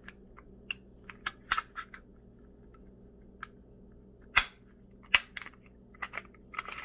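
Glock 41 pistol being taken apart by hand: a string of sharp clicks and clacks from the slide and parts, the loudest about one and a half, four and a half and five seconds in.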